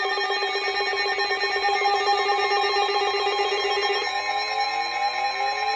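Electronic emergency alert tone announcing a tornado warning: a rapidly trilling, ringing tone on several steady pitches, which about four seconds in changes to repeated rising sweeps.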